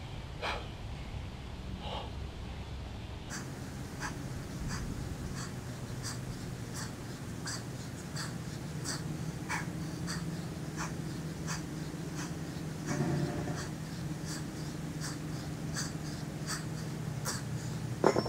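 A man breathing hard through a set of dumbbell squats, over a steady low hum and a run of light, regular clicks about one and a half a second.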